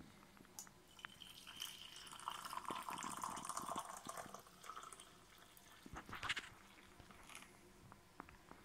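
Hot coffee poured from a jug into a ceramic mug, a steady stream filling it for a few seconds, followed by a couple of light knocks.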